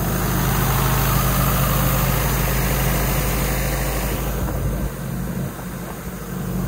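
Diesel engine of an Ingersoll Rand XP375 towable air compressor idling steadily, dipping somewhat in level about two-thirds of the way through.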